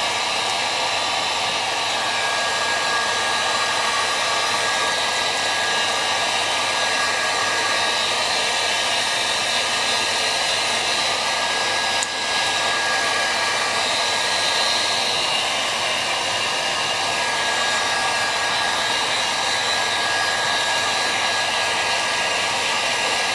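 Electric heat gun running on its low setting: a steady rush of blowing air with a faint high whine, drying lighter-fluid (shellite) off small clock parts. A brief click about halfway through.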